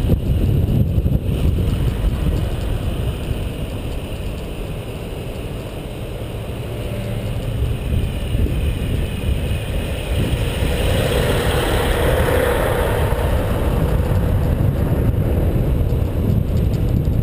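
Road traffic heard from a moving bicycle, with cars and trucks passing in the next lane over a steady low rumble of wind on the microphone. About ten seconds in, a passing vehicle grows louder for a few seconds, then fades.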